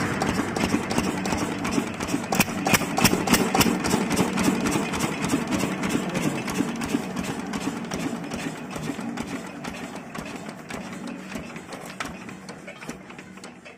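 Lister 10 HP single-cylinder diesel engine running steadily with an even knocking beat, running smoothly now that the air has been bled from its fuel system. The sound grows quieter over the last few seconds.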